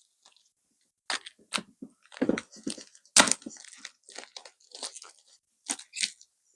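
Toy box packaging being opened by hand: a run of irregular crackles, rips and crinkles of cardboard and plastic.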